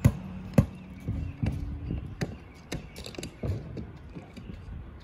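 A series of irregular knocks and thuds from work on a mobile home roof, two loud ones at the start and the rest lighter and spaced about a third to half a second apart. A faint low hum sounds under the first two seconds.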